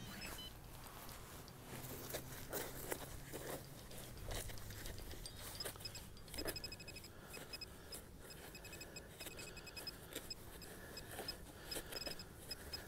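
Faint scraping and rustling of gloved hands digging in wet beach sand. From about six seconds in, a metal-detecting pinpointer gives faint, quick, high electronic beeps in short runs.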